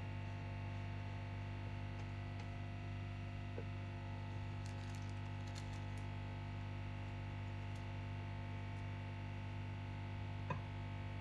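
Steady low electrical hum in a kitchen, with a few faint crinkles of a plastic piping bag being handled about five seconds in and a soft tap near the end.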